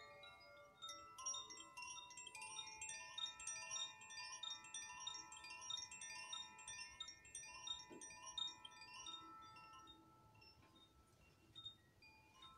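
Metal chimes played by hand: a quick, tumbling run of many overlapping high ringing notes, faint overall, that thins out and fades over the last few seconds.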